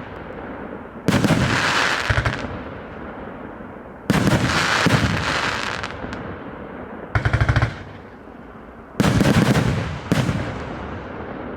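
A multi-shot fireworks cake firing its shots in rapid volleys. Four salvos come about every two to three seconds, each a quick string of bangs that dies away in echo; the third is a short, even burst of pops.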